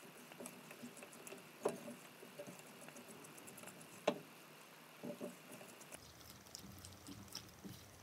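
Silicone spatula stirring and folding thick cornflour halwa, with ghee stirred in, in a nonstick pan: faint soft wet pats and small ticks, with two sharper taps a little under two seconds in and again about four seconds in.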